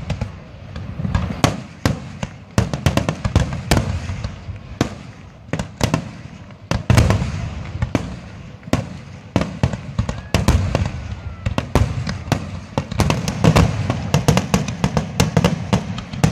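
Aerial fireworks display: shells bursting in a rapid, irregular series of sharp bangs with deep rumbling booms beneath, the bangs coming thickest toward the end.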